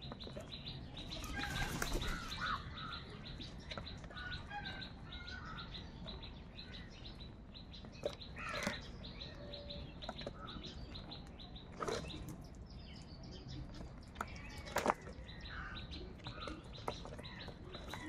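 A flock of house crows jostling over food: wings flapping in short flurries, the loudest about two seconds in, with scattered sharp clicks and short bird calls.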